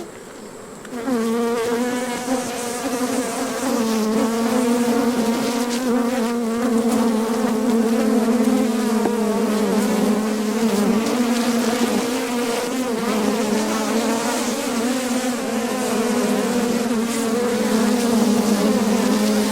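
Honeybees buzzing around an opened hive during a frame inspection: a steady, full hum that swells about a second in.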